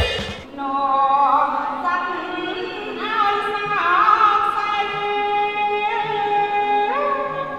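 A single voice singing long, held notes that slide slowly up and down between pitches, with no beat behind it.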